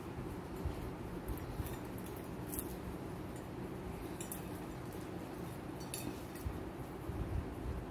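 Metal jewellery pieces, a necklace pendant and earring, clinking lightly about four times as they are handled, over a steady low hum.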